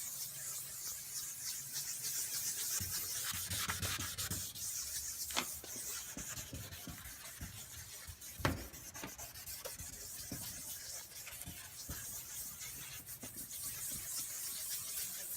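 Abrasive pad being rubbed rapidly back and forth on a Toyota Yaris's plastic headlight lens, sanding off the oxidation as a steady scrubbing hiss. Two sharper clicks come about five and eight seconds in.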